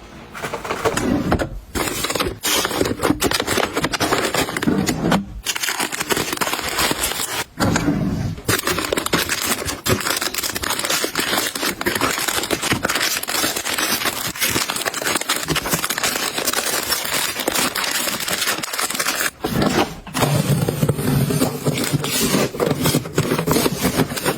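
Close-up handling sounds: continuous scraping and crackling with many small clicks and rustles, pausing briefly a few times.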